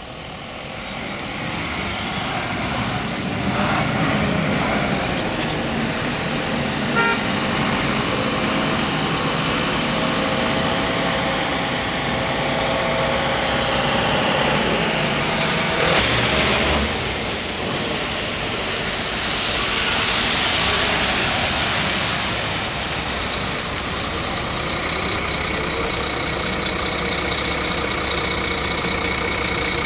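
Articulated city bus engines and passing road traffic on a wet street: a bus pulls away, a truck passes with a swell of engine and tyre hiss on wet asphalt, and two brief high squeals come a little past the middle. Near the end an articulated bus's engine runs steadily close by.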